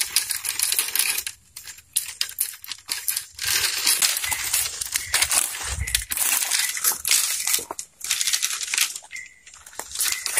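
Dry fallen leaves crunching and crackling under footsteps and hands, in dense irregular runs broken by a few short pauses.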